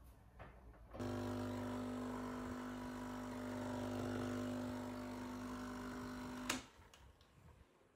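Capsule coffee machine's pump humming steadily as it brews, starting about a second in and stopping with a click after about five and a half seconds.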